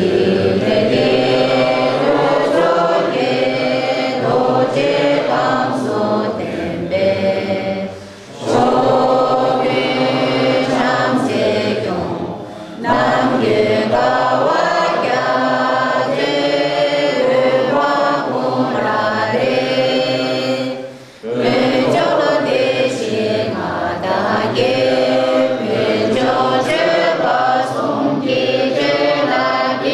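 A standing crowd of men and women singing together, a slow song in long phrases with short pauses about 8, 12 and 21 seconds in.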